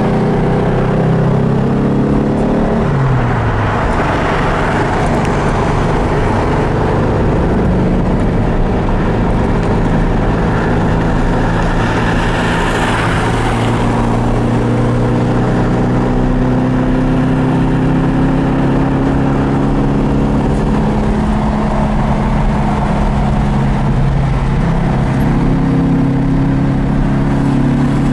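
1965 Porsche 356C 1600 SC's air-cooled flat-four engine running steadily at freeway speed, with wind and road noise. The engine note drops a couple of seconds in, and a rush of noise swells about halfway through.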